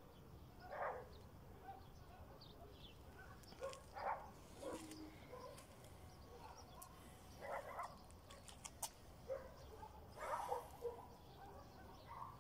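Faint, short animal calls, several of them a few seconds apart, over a low steady background, with a few light clicks near the middle.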